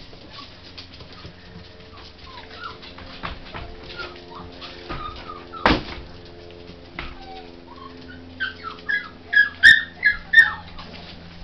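West Highland White Terrier puppies playing, giving many small high whines and squeaks, with one sharp sound about halfway and a quick run of louder high yips near the end.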